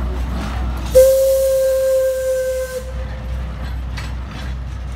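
Steam whistle of the Shay geared steam locomotive SL-31 blowing one steady blast of about two seconds with a rush of steam hiss, starting about a second in and cutting off suddenly. The locomotive's low running rumble carries on under it, with light clicks near the end.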